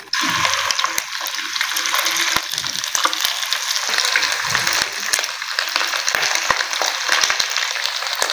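Kebabs shallow-frying in hot oil in a pan: a steady, dense sizzle full of small crackles and pops, which starts suddenly right at the beginning.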